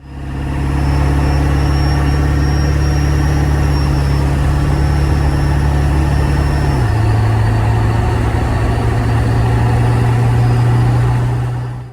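Ford 7.3L Powerstroke turbo-diesel V8 of a 2000 F250 running steadily, a deep engine note with a thin high whine over it. About seven seconds in, the note and the whine step down slightly.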